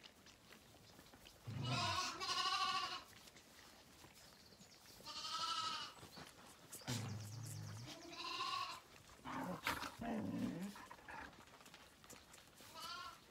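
Zwartbles lambs bleating, about six quavering calls of around a second each, one of them noticeably lower-pitched.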